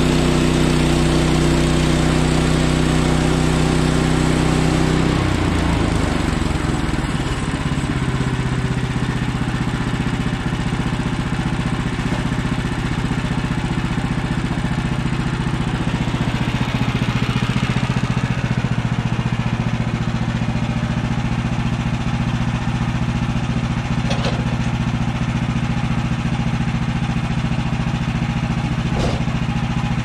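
Band sawmill's gasoline engine running steadily; about five seconds in its pitch drops to a lower steady note and holds while the blade cuts through a small red pine log. Two sharp knocks come near the end.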